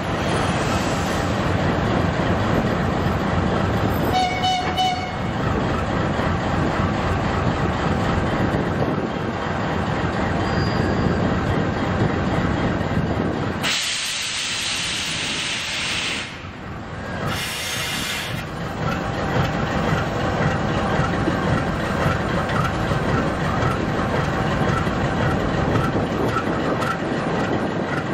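2ZAGAL diesel locomotive's engine running steadily as it moves slowly along the platform, with a brief high squeal about four seconds in. Halfway through, a loud hiss of air lasts about two seconds, followed by a shorter hiss a second later.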